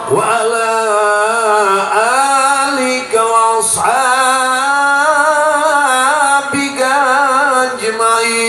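A man singing an Islamic devotional chant (sholawat) through a microphone and loudspeakers. He holds long, wavering melismatic notes, breaking off briefly twice for breath.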